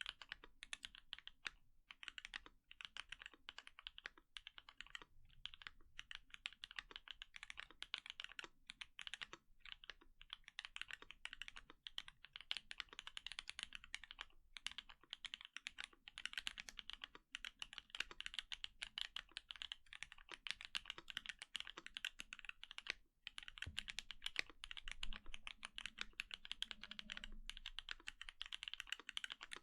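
Continuous fast typing on an Ai03 Vega mechanical keyboard with lubed H1 linear switches in an aluminium plate and GMK keycaps, a steady stream of soft keystroke clacks with a few brief pauses.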